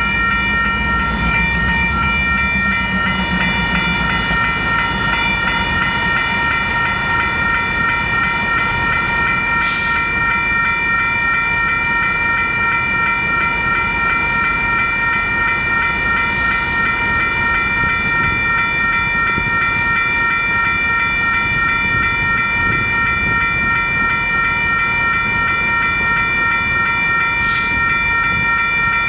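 Union Pacific train rolling past, with several steady high-pitched ringing tones held throughout over a rail rumble. A deeper rumble fades over the first few seconds, and two short hissing bursts come about ten seconds in and near the end.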